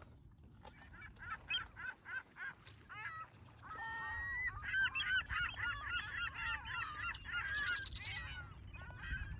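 A flock of geese honking. Separate calls come about three a second at first, then many overlap in a dense chorus from about four seconds in, and it thins out near the end.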